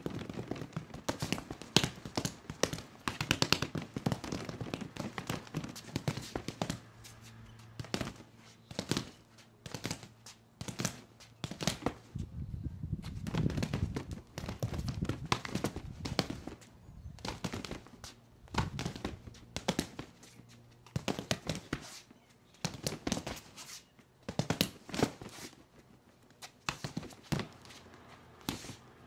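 Bare hands slapping and punching a free-standing striking dummy with padded arms: quick flurries of sharp smacks and thuds from strikes and blocks on the dummy's arms and head, with short pauses between flurries.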